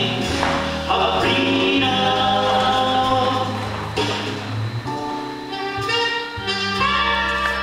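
Choir singing in harmony over instrumental accompaniment, with sustained chords and a steady bass line underneath.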